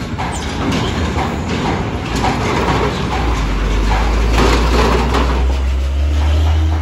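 Diesel box truck driving slowly off a ferry's steel ramp close by, its tyres clanking over the steel plates of the ramp. A deep engine drone swells about three seconds in as the truck passes.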